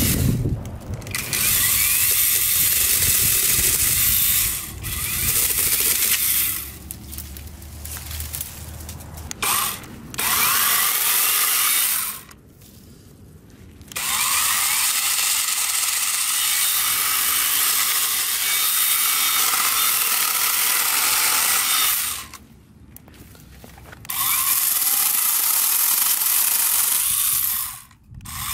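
Mensela 8-inch cordless mini chainsaw running in bursts, its chain cutting through shrub stems and small branches. Several runs of a few seconds each with short pauses between them, the longest lasting about eight seconds.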